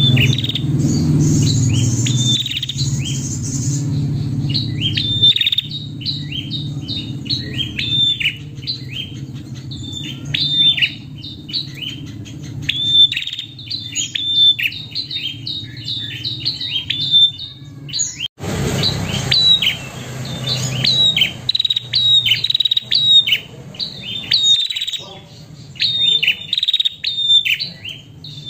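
A female prenjak gives long runs of short, sharp chirps, several a second, with a brief break about 18 seconds in. This is the female's call that draws in males, used by keepers as a lure and training call. A steady low hum lies underneath.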